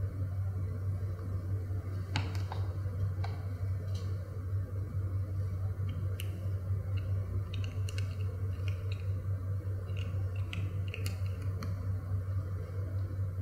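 A cat crunching dry treats: scattered small clicks and crackles, over a steady low hum.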